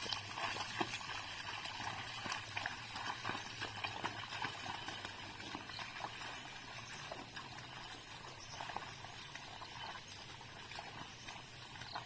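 A bullock team's hooves and a wooden plough squelching and splashing through a flooded, muddy paddy field, with many small irregular splashes. The sound fades as the team moves away.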